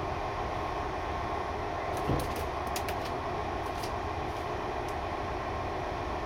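Train of double-deck coaches hauled by a Class 218 diesel locomotive, running at speed: a steady rolling rumble, with a dull knock about two seconds in and a few short sharp clicks after it.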